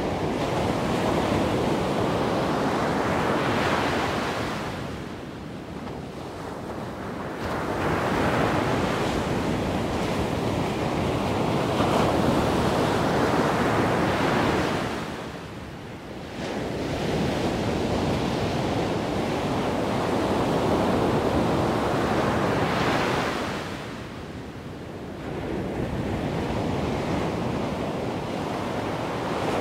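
Wind rushing over the microphone, swelling and easing in slow surges about every nine or ten seconds.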